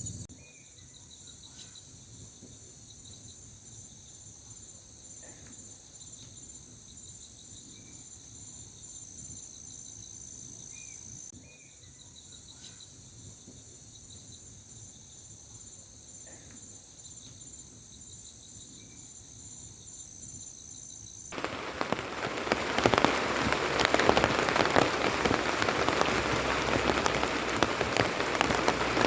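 Insects chirping steadily in high, finely pulsing trills over a quiet background, then, about two-thirds of the way through, an abrupt cut to loud, steady rain.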